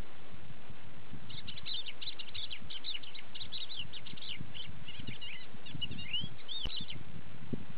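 Lark singing in flight: a fast string of high chirps and trills starting about a second in, ending with a few sliding, arching whistled notes, over a steady low background noise.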